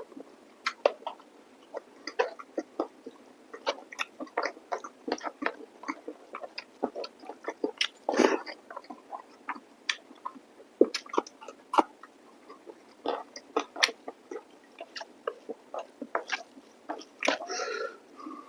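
A person chewing and eating chicken masala curry with rice and salad close to the microphone: an irregular run of short mouth clicks and smacks, with denser patches about eight seconds in and near the end.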